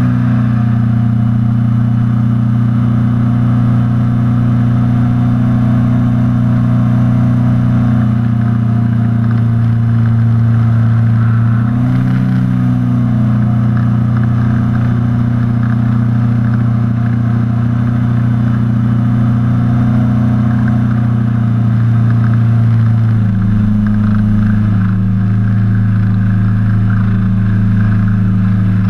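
BlackHawk paramotor quad's engine and propeller running steadily in flight, a loud even drone. The pitch wavers briefly near the middle and steps to a slightly different note later on.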